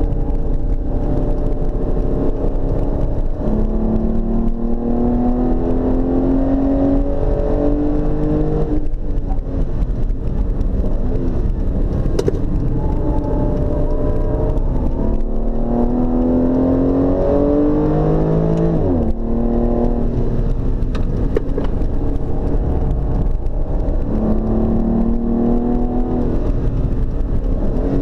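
Aston Martin Rapide's V12 engine heard from inside the cabin while driven hard on a track: its pitch climbs under acceleration three times, falling off sharply about a third and two thirds of the way through as the driver lifts or shifts. Steady tyre and road rumble runs underneath.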